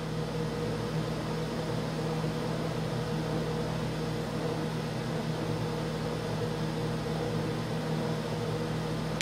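Steady hum of a kitchen appliance over a faint hiss.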